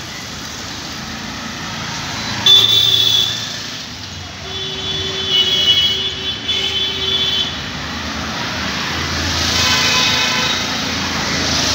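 Road traffic noise with vehicle horns: a short honk about two and a half seconds in, a longer broken honk from about four and a half to seven and a half seconds, then a vehicle passing close near the end.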